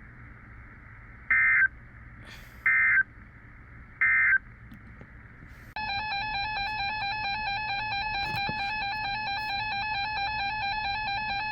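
Emergency Alert System SAME data bursts: three short, identical digital bursts about a second and a half apart, the end-of-message code that closes an alert. A little before halfway, a steady multi-tone EAS attention signal starts and holds at an even level.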